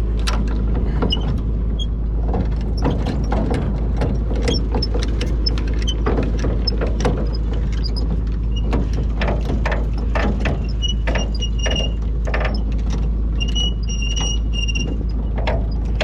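Tractor engine running steadily under a stream of metal clanks and rattles. From about two-thirds of the way in, a short high squeak repeats several times.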